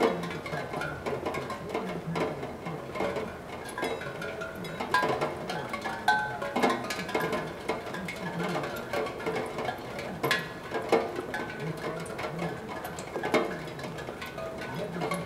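Raindrops striking a steel tongue drum, setting its tuned tongues ringing in a random scatter of short notes at different pitches, with the light tapping of drops in between.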